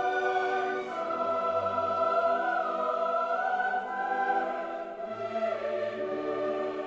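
Classical choral music: a choir singing long held chords that shift every second or two.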